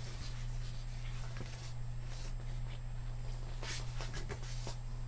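Pages of a paperbound album photo book being turned by hand, giving short papery rustles and flaps, the clearest near the end. Under it runs a steady low hum.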